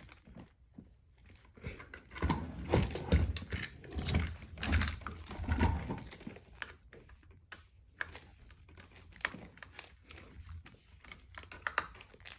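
Irregular clicks, taps and knocks of tool parts being handled and fitted, a dense cluster from about two to six seconds in, then scattered lighter clicks.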